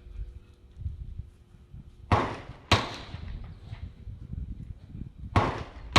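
Rifle gunshots on a shooting range: two sharp shots about half a second apart around two seconds in, and another pair the same distance apart near the end.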